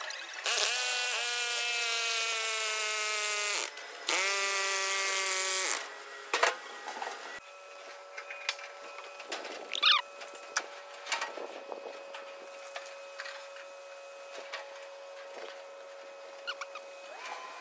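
Handheld electric power tool driving an earth rod into the ground, running in two bursts of about three and two seconds, its pitch sagging a little under load. Afterwards faint metallic clicks and knocks over a faint steady hum.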